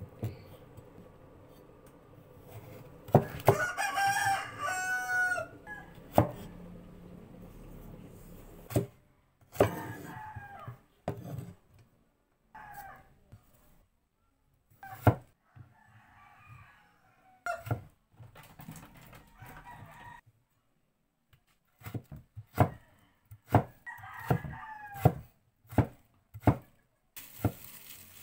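Knife chopping carrot and potato on a wooden chopping board, in sharp irregular strokes. A rooster crows in the background, one long crow about three seconds in, with further calls later.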